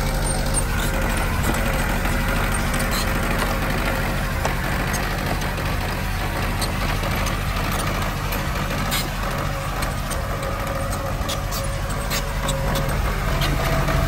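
Heavy diesel earthmoving engine running steadily under work, with a few sharp clicks in the second half.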